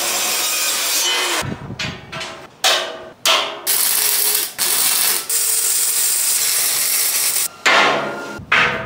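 Metal-cutting chop saw cutting through steel bar stock for about a second and a half. Then arc welding on steel: a few short crackling bursts, followed by a steady weld run of about four seconds and more short bursts near the end.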